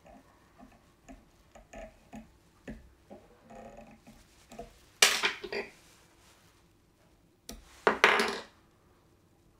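Fly-tying handling sounds: soft ticks and taps as a whip-finish tool is worked around the head of a fly held in a vise, then two louder rustles of about half a second each, about five and eight seconds in.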